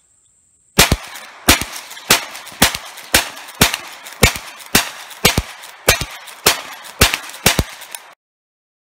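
Rossi R92 lever-action .357 Magnum rifle firing .38 Special handloads in a rapid string: about thirteen loud shots, roughly two a second, each followed by a quick echo. The string cuts off abruptly near the end.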